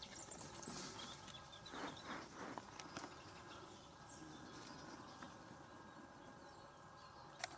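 Faint outdoor ambience with a few faint, high bird chirps in the first second or so, and some soft rustling.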